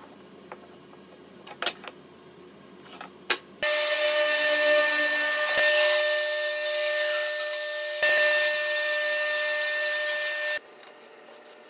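A few light knocks of wood pieces being handled, then a table saw running and cutting a thin strip of wood: a steady high whine over loud cutting hiss that starts abruptly about three and a half seconds in and cuts off sharply near the end.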